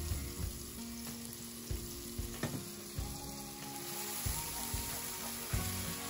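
Ground spice paste sizzling as it fries in hot oil in a wok, with a spatula scraping and stirring it in short strokes. Background music plays throughout.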